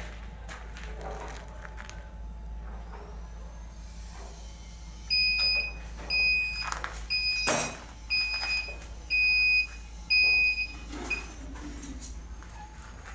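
Cap heat-press machine's timer buzzer beeping about six times, roughly once a second, each beep a steady high two-tone pitch; this is typical of the press signalling the end of its set pressing time. A sharp click comes in the middle of the beeps, over a steady low machine hum.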